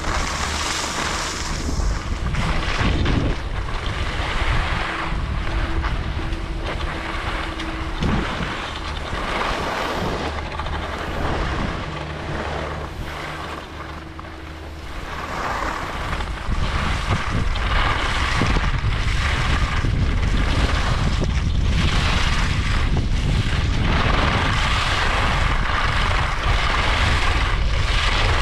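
Wind rushing over the microphone and skis scraping over snow during a downhill ski run, in repeated swells with each turn, growing louder and steadier about halfway through.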